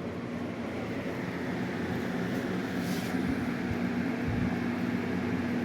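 Steady mechanical hum with a constant low tone, unchanging throughout, like a motor running.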